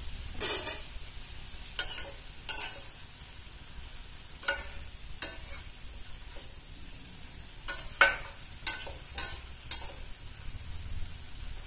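Flat metal spatula scraping and knocking against a stainless steel pan as shredded red cabbage is stirred, about ten short sharp scrapes in irregular groups. Under them runs a faint steady hiss of the cabbage frying.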